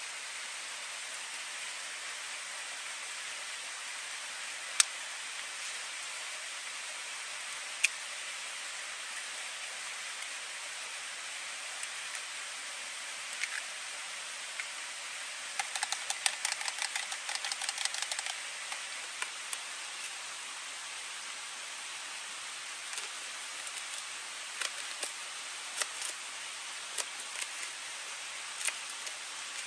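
Steady rushing of river water, with a few sharp clicks, a rapid run of small taps about halfway through, and scattered knife cuts through leafy greens on a plastic plate near the end.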